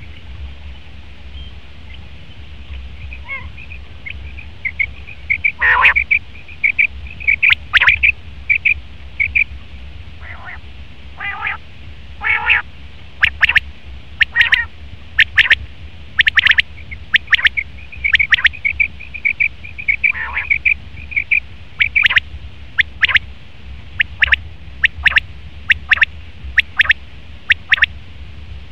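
Male common quail calling: sharp repeated notes about once a second, with runs of quicker, softer notes in between, over a steady low hum.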